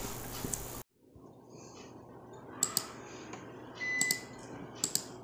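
Faint room tone with a few soft computer-mouse clicks, and a short faint high tone about four seconds in. The background hiss drops away abruptly about a second in, where the recording was cut.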